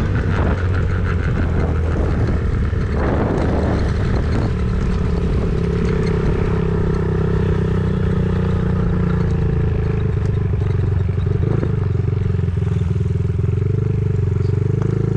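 Engine running steadily with a low, even drone, and a short clatter about three seconds in.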